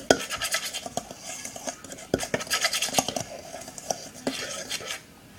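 A kitchen utensil stirring dry brownie mix in a bowl to break it up, with quick clinks and scrapes against the bowl that stop near the end.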